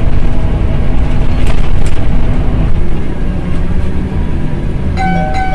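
Cabin noise inside a moving TransJakarta city bus: steady low engine and road rumble. A short high tone sounds near the end.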